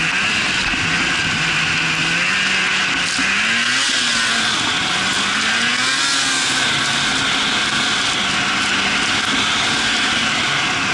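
Snowmobile engine running under way, its pitch rising and falling with the throttle several times, over a steady rushing noise.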